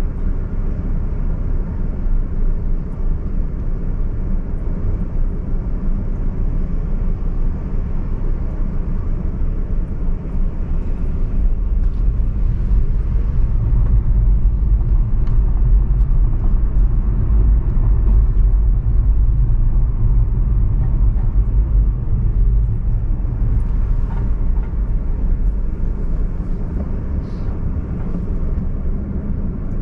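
Steady low road and engine rumble of a car driving, heard from inside it. The rumble swells for a stretch in the middle and then eases back.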